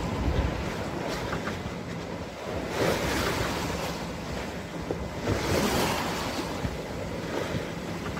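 Sea water rushing along the hull of a sailboat under way, with wind buffeting the microphone. The wash swells louder about three seconds in and again about five and a half seconds in.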